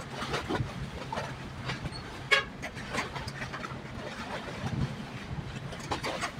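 A short, pitched horn toot about two seconds in, over irregular rushing outdoor noise and a steady low hum.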